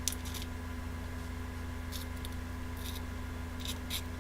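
Lock pick working the pins inside a brass Dudley pin-tumbler padlock during single-pin picking: brief scratchy metallic scrapes and clicks in a few separate spurts, over a steady electrical hum.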